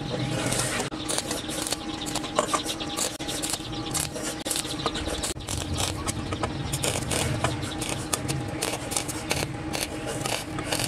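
A hair dryer used as a forge blower runs steadily with a low hum, feeding air to the glowing charcoal, under frequent small clicks and scrapes of metal on metal from the steel rod against the stainless-steel forge bowl.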